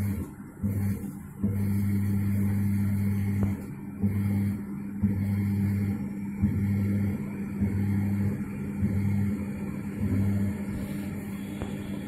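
Toshiba washing machine motor humming in on-and-off bursts of half a second to two seconds, on a spin test after its rat-chewed wiring was rejoined.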